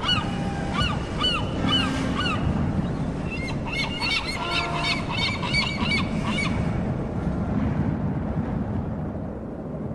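Seagulls crying, a run of short arched calls repeating quickly over a steady rush of wind and sea. The calls stop about two-thirds of the way through, leaving the rush fading away.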